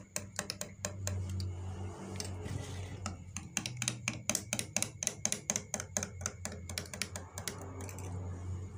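Metal spoon stirring a hot drink in glass mugs, clinking rapidly against the glass several times a second, over a steady low hum.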